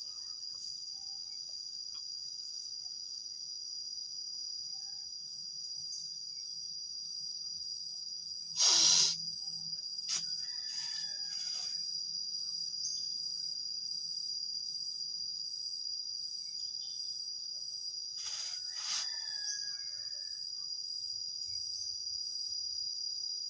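Steady high-pitched chorus of crickets or other insects. A brief louder rush of noise comes about nine seconds in, and a few fainter short sounds follow later.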